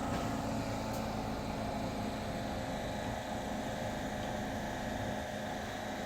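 Rail transit train running steadily, a constant rumble with a steady motor hum and whine.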